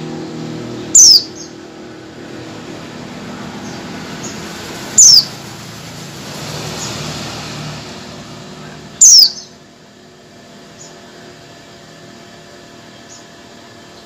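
Caged female white-eye (pleci) giving three loud, sharp calls that drop in pitch, about four seconds apart, with fainter chirps in between. This is the female's call to males. A low rumble runs underneath and fades out about nine seconds in.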